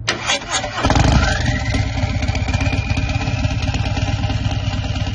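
Motorcycle engine starting: a few sharp clicks, then the engine catches under a second in and runs with a fast, pulsing rumble. A high whine rises over the next second and then holds steady.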